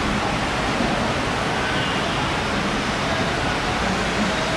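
Heavy rain falling steadily on the roof overhead, a dense even hiss with no let-up.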